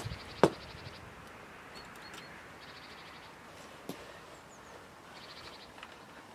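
A sharp click about half a second in and a smaller knock near four seconds, from handling the parked motorcycle, with short high bird trills repeating every couple of seconds in the background.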